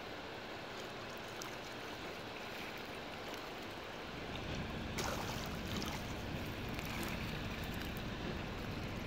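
Small waves lapping gently at a pebble shore, with wind rumbling on the microphone that grows stronger about four seconds in, and a single sharp click about five seconds in.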